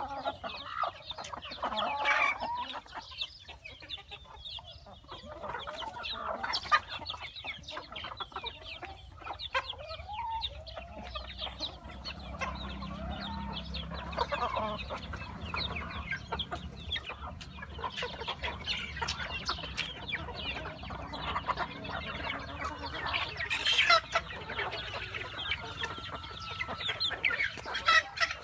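A flock of chickens clucking and calling while they feed, with a rooster crowing now and then.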